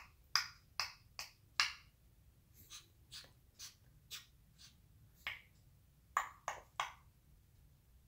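African grey parrot imitating a dog sniffing: a series of short, sharp sniffs, coming in quick runs of three to five with brief pauses between.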